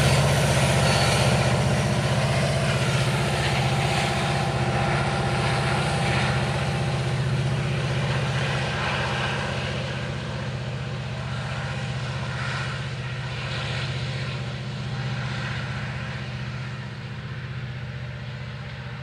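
Freight train's diesel locomotive running with a steady low engine drone and wheel-on-rail noise, fading gradually as the train moves away.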